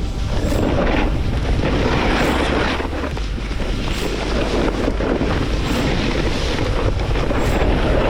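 Wind buffeting the microphone over the hiss and scrape of a snowboard sliding on snow, rising and falling in long swells.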